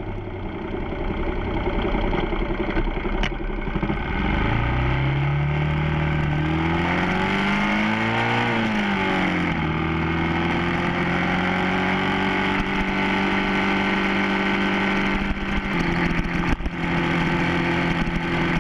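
Motorcycle engine heard from the bike, with wind rush. Its pitch rises steadily for about four seconds, drops back at around nine seconds, then holds at a steady cruise.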